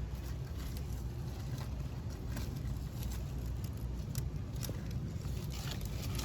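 Faint, scattered scratching and scraping of soil as a cherry-head red-footed tortoise covers her freshly laid nest with her hind feet, over a steady low rumble.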